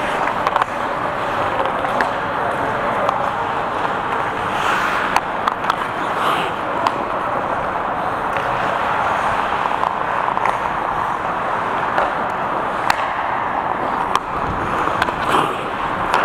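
Ice skate blades scraping and gliding on the rink ice, with sharp clacks of hockey sticks and puck here and there.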